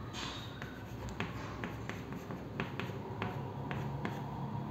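Chalk drawing on a chalkboard: about ten light, irregularly spaced taps and short scratches as the lines are stroked on.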